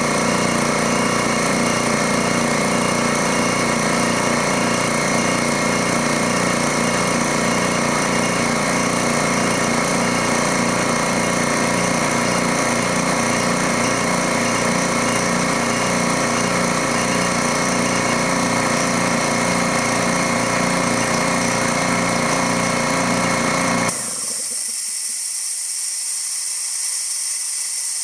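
Dewalt D55146 air compressor's motor and pump running steadily, then shutting off suddenly near the end, followed at once by a loud steady hiss of air. The hiss is the tank pressure escaping back past a faulty check valve.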